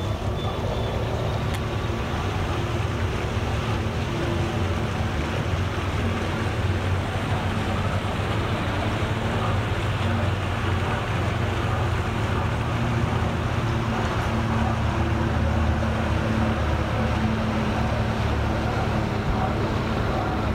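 Low, steady engine hum of an approaching motorboat, slowly growing louder.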